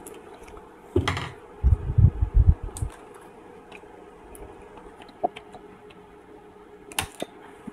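Knocks and small clicks of the TV's old main board being handled and pulled out, with a cluster of thuds about a second in and a few sharp clicks later, over a faint steady hum.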